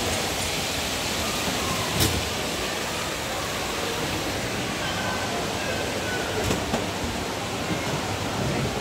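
Steady hiss of a busy shopping hall, with faint voices of shoppers mixed in and a couple of sharp knocks, one about two seconds in and another past the middle.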